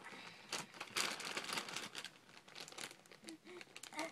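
Plastic candy wrapper crinkling and rustling as it is handled and torn open, loudest in the first couple of seconds, then lighter rustles.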